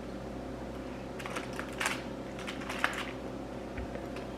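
Small crinkling and clicking sounds in a few short clusters: a cardboard chocolate advent calendar and its foil-wrapped chocolate being handled and opened.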